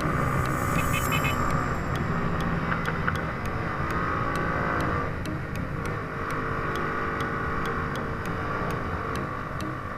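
Hi Speed Infinity 150cc motorcycle being ridden, its engine running steadily under wind and road noise.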